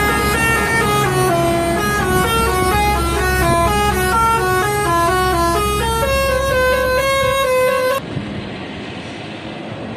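Bus telolet horn playing a quick tune: several horn tones sounding together, stepping up and down in pitch, over the low hum of the bus's engine. About eight seconds in it stops abruptly and a quieter stretch of engine and road noise follows.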